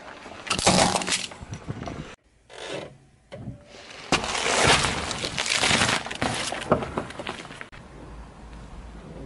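Car tyre rolling over and crushing things on asphalt: first a hard plastic toy, then a row of fruit, with loud cracking and crunching in two long stretches separated by a short break a little over two seconds in. The sound goes quieter near the end.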